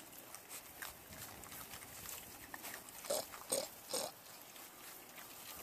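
Young pigs feeding and rooting on the ground, with a steady patter of small crunching, snuffling noises and three short, sharp pig calls one after another about three to four seconds in.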